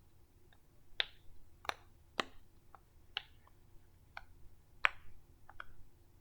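Bubbles of a small silicone pop-it fidget toy being pressed through with the fingers: about a dozen short pops at an irregular pace.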